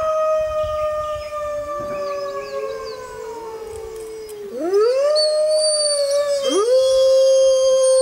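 Several gray wolves howling together. A long howl sinks slowly in pitch as a lower one joins it; about halfway through, fresh howls swoop up and hold, and the chorus grows louder.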